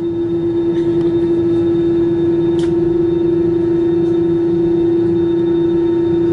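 Airbus A320's jet engines heard from inside the cabin: a steady drone with a constant hum, growing louder over the first two seconds and then holding steady as the jet turns onto the runway for takeoff.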